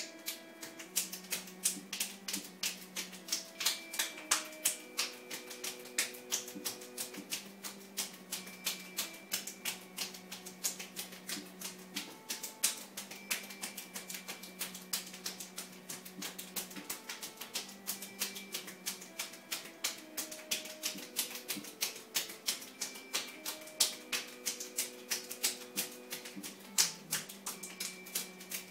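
Hands patting and tapping quickly on a body in a percussive massage, a few sharp slaps a second at an uneven pace, over soft background music with long held notes.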